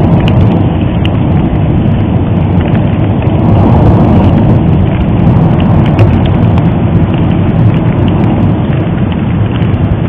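Popocatépetl volcano erupting: a loud, steady low rumble with scattered crackles and pops.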